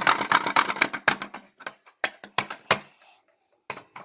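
Fire alarm pull station being banged and rattled to reset it, because it sometimes won't open: a fast run of clattering knocks that thins out into single knocks, with a short pause near the end.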